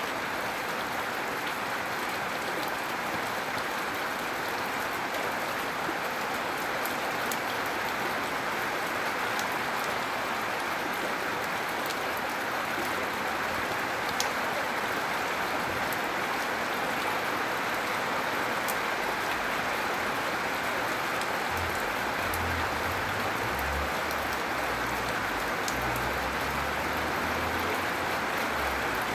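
Steady, gentle rain falling: an even hiss with scattered sharp drop ticks. A low rumble joins in for the last several seconds.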